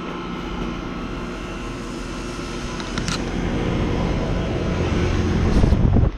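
Outdoor heat pump condensing units running: a steady mechanical hum of compressor and fan that grows louder, with a low rumble at its strongest near the end.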